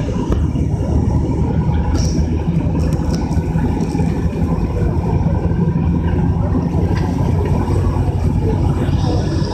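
A forestry machine's engine running steadily at a constant speed, with a few light knocks over it.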